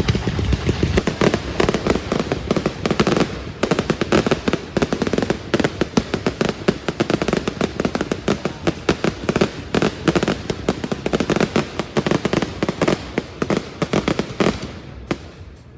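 Fireworks going off in a rapid, dense run of crackling bangs, thinning out and dying away near the end.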